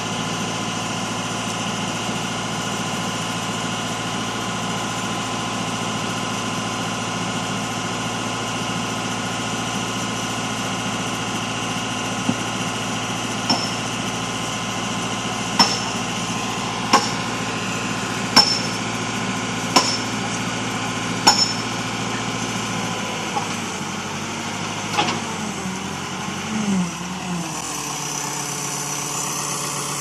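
Backhoe loader engine running steadily. About halfway through, a run of sharp metallic strikes comes about every second and a half, seven in all, and near the end the engine note drops and then rises and falls a few times.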